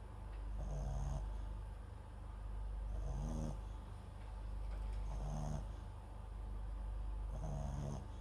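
A sleeping Papillon–Japanese Chin mix dog snoring close to the microphone: four short snores a little over two seconds apart, each a low rasping tone with a faint high hiss, the breathing swelling and falling in between.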